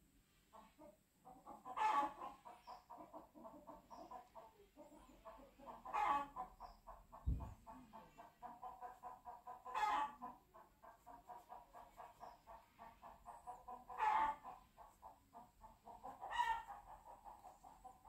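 Chicken clucking in quick runs of pulses, with a louder, higher call roughly every four seconds. A single dull thump about seven seconds in.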